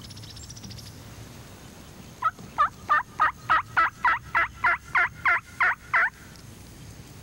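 A run of about a dozen evenly spaced turkey yelps, about three a second, each note breaking from a higher to a lower pitch, in the rhythm of a hen's yelping series.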